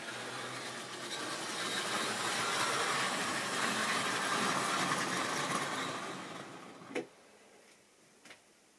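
Model railway train running on the track, a steady whirr and rattle of motor and wheels that grows louder and then fades away over about six seconds. A single sharp click comes at about seven seconds, followed by quiet.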